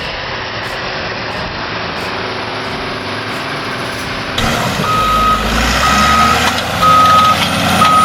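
Heavy machine's engine running steadily. About halfway through, a reversing alarm starts beeping at one pitch, about one beep a second, four times, over the engine.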